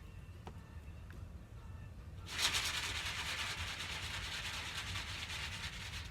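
Person snoring in sleep: about two seconds in, a long, hissy, fluttering breath begins and lasts about four seconds, tapering off near the end.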